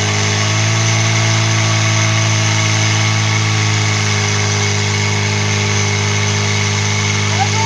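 Engine of a portable fire-sport pump running at a steady speed.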